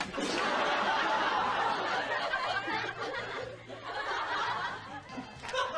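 Audience laughter at a pie-in-the-face gag. It is strongest in the first couple of seconds, eases off, then swells again near the end.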